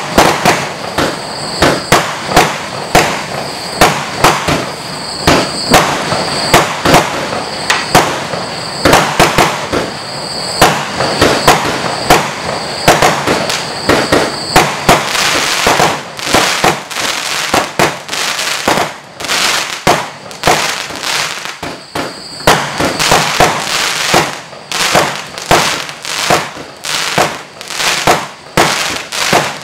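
Lesli 'Stadium Wave' firework compound cake firing a rapid, irregular string of shots that burst overhead, about two a second.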